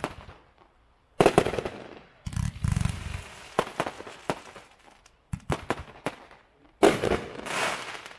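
Hot Fireworks 'V.I.P.' consumer firework cake firing in volleys of sharp bangs, with a deep, heavy boom about two to three seconds in. Near the end comes a burst of crackling as glitter stars break.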